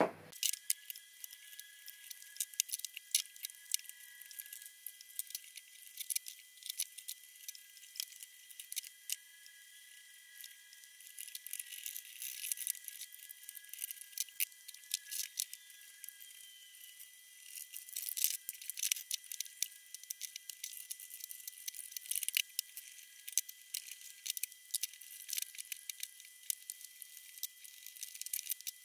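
Many quick, sharp metallic clicks, clinks and rattles of hex keys, screws and aluminium rails as a 3018 Pro desktop CNC router frame is taken apart by hand. The sound is thin and tinny with nothing low in it, over a faint high steady whine.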